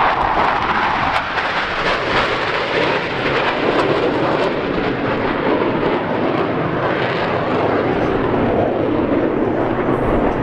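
Jet engine noise from a formation of four F/A-18 Hornet fighters flying past: a loud, steady rushing sound that deepens over the first few seconds as they pass.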